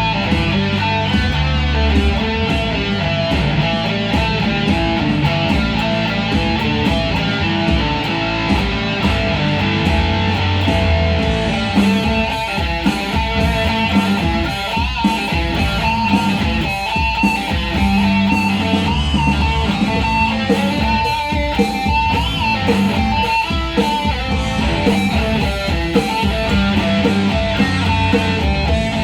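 Music led by guitar, with strummed chords over bass and a steady beat.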